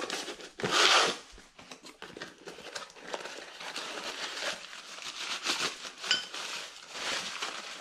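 Packaging being handled: a cardboard box opened and a part pulled out of crinkling plastic wrapping, with irregular rustling and crinkling throughout and a louder rustle about a second in.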